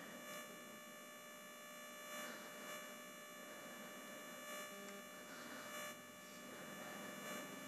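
Faint steady electrical hum and hiss of the recording's background, with a few soft, faint ticks scattered through it.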